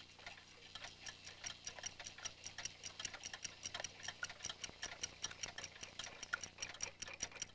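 A clock ticking faintly in a rapid, even rhythm, with a steady low hum underneath.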